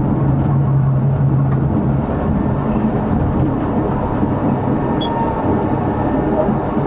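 Tram running along street track, heard from the driver's cab: a steady rumble of wheels on the rails and running gear. A low steady hum stops about two seconds in.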